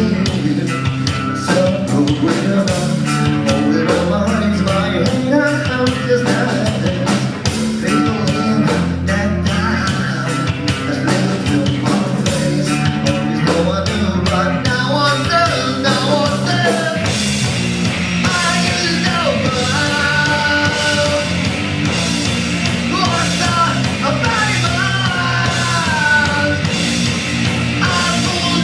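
Live rock band playing, with drums, electric guitar and singing; the sound fills out and gets busier about seventeen seconds in.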